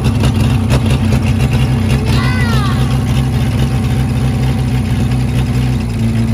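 Komatsu D20A dozer's diesel engine running steadily, freshly started. Its note shifts slightly near the end.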